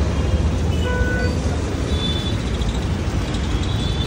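Steady rumble of road traffic, with a few brief faint high tones over it.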